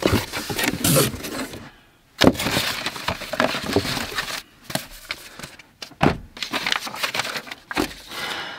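Cardboard packaging being handled: box flaps pulled open and cardboard inserts lifted out, giving irregular scraping, rustling and crackling with a short pause about two seconds in. Paper sheets rustle near the end.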